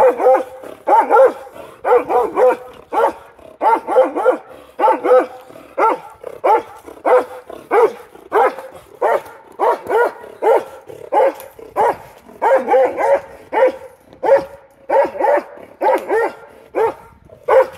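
Karelian Bear Dog barking over and over, about two barks a second without a break. It is baying a bear cub it has treed.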